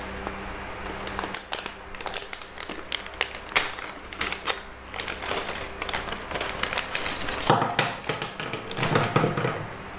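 Plastic pen pouch being opened and handled, crinkling and rustling, with irregular clicks of plastic gel pens knocking together as they come out onto the table. The clicking starts about a second in and is busiest near the end.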